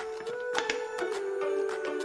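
Background music: a held melody line that shifts in pitch, with light taps at a steady pace.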